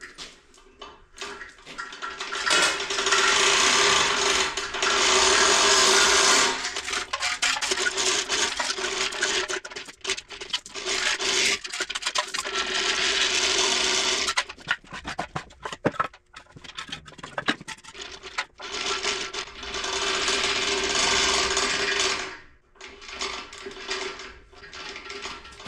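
A small motorized tool running in several long runs of a few seconds each, with a steady whine, and quieter pauses with scattered clicks and clanks between the runs.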